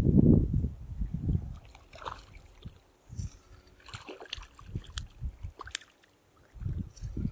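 Wind buffeting the microphone in gusts, strongest at the start and again near the end. In between come light splashes and sloshing of water at the shore as a hooked trout is played in.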